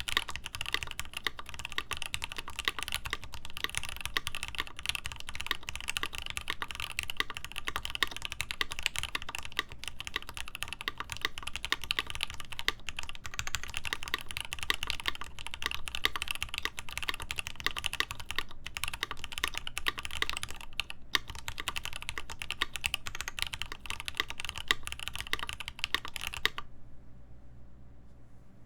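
Continuous typing on a Rama Works Kara mechanical keyboard with lubed Gateron Ink linear switches, GMK Terminal keycaps, a polycarbonate plate and an internal dampener: a dense, unbroken stream of keystroke clacks that stops about two seconds before the end.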